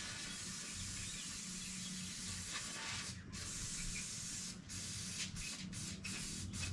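Aerosol spray can hissing as the hardened steel ball of a flex joint is sprayed off to clean it. One long spray of about three seconds, a shorter one, then several quick short bursts near the end.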